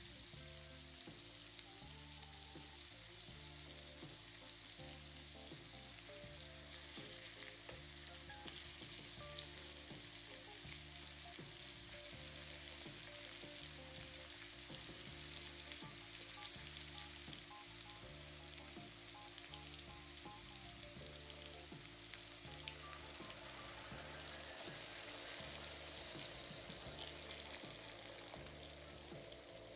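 Mushrooms, and later chicken breast fillets, frying in oil in a nonstick pan: a steady sizzle with fine crackles. Red wine is poured in near the end.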